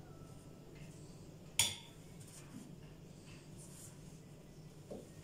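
A metal spoon clinks once, sharply, against a plate about a second and a half in, over a faint steady low hum, with a soft knock near the end.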